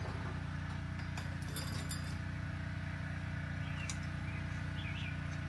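Light metal clinks of a 15 mm wrench working a bolt on an e-bike's front fork, a cluster about a second and a half in, over a steady low hum. A few faint short high chirps come near the end.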